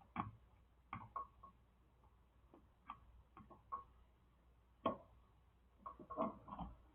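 Faint, irregular clicks and taps of an electrical tester and wires being handled in a light-switch junction box, the loudest about five seconds in.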